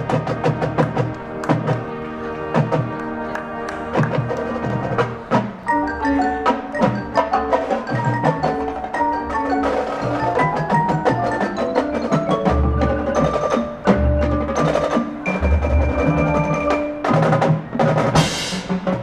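Marching band music carried by the front ensemble's mallet percussion: marimbas and other keyboard percussion striking quick runs of notes over deeper sustained tones and drums. A brief rising wash of high noise swells near the end.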